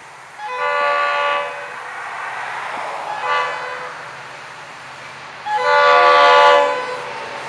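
Diesel freight locomotive's multi-chime air horn sounding a long blast, a short blast and a long blast, the pattern used as a train nears a road crossing. The approaching train rumbles underneath.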